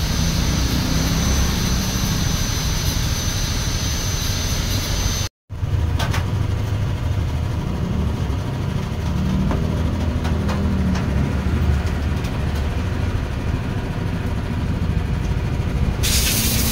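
A motor running steadily in a motorcycle workshop with a low rumble; for the first few seconds a thin high whine rides above it. The sound breaks off for an instant about five seconds in, then goes on with a few light clicks, and a hiss comes in near the end.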